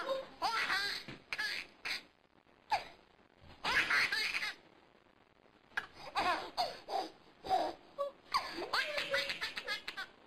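High-pitched laughter in several short fits, with brief pauses between them.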